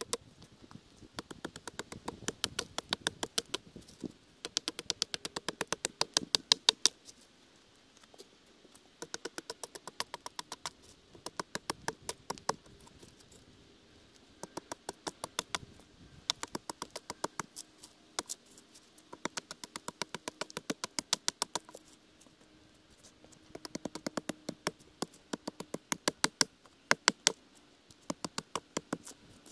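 An axe chopping and hewing a pine log: quick runs of sharp wooden knocks, several a second, in bursts of a second or two with short pauses between.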